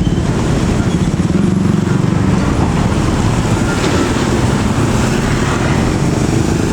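Heavy truck running close by: a loud, steady, low diesel rumble.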